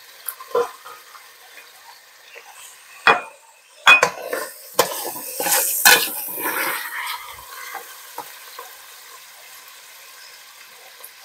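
A slotted spoon knocking and scraping against a pot as browned ground beef is scooped out of its grease and dropped into a bowl, with the meat sizzling. Several sharp knocks come between about three and six seconds in, with a stretch of scraping around the middle.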